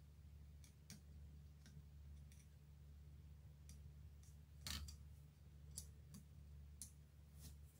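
Faint, sharp metal clicks and ticks, about ten, as the green light filter's small metal frame is fitted into the lever mechanism of the signal lamp's front cover. The loudest click comes a little under five seconds in, over a steady low hum.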